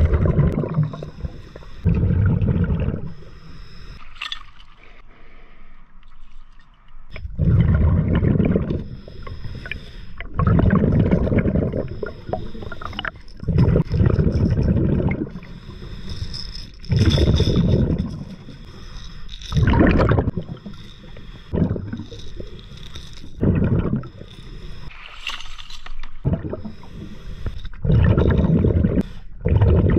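Scuba diver breathing through a regulator underwater: bursts of exhaled bubbles rumble and gurgle past the camera about every two to four seconds, about ten breaths in all.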